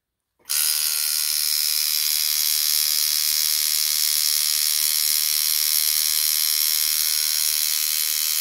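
Dan Kubin DMC 2.0 rotary tattoo machine switching on about half a second in and running steadily at 5.5 volts: an even, high-pitched motor buzz.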